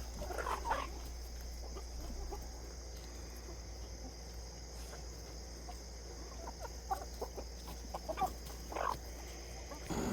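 Laying hens clucking in short, scattered calls: a few about half a second in, then several more near the end. A steady chirring of insects runs underneath.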